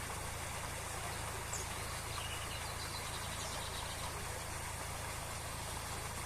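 Steady rushing of a waterfall, with a few faint bird chirps about two to three seconds in.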